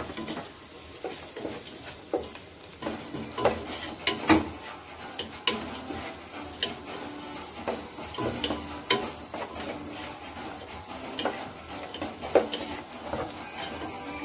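Wooden spatula stirring sliced onions sautéing in a nonstick pot. Irregular knocks and scrapes of the spatula against the pot sound over a faint steady sizzle.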